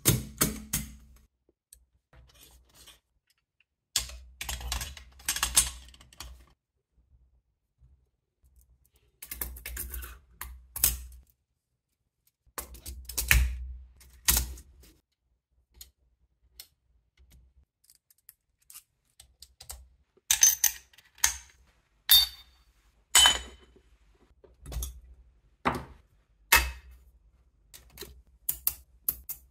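Metal parts of a model turbofan jet engine kit handled and fitted together by hand: clicking, clinking and light knocking in separate bursts with short pauses between them, the sharpest clicks in the latter part.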